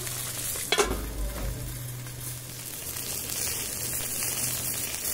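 Banana-leaf-wrapped hilsa fish parcels (ilish paturi) sizzling steadily as they shallow-fry in mustard oil in a kadai, with a single knock about a second in.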